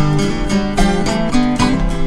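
Instrumental music with acoustic guitar, plucked notes and strumming over a bass line, without singing.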